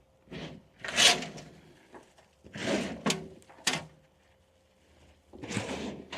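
Hands rummaging through potting soil from a potato grow bag: a series of short rustling, scraping bursts, the loudest about a second in, with a couple of sharp knocks near the middle.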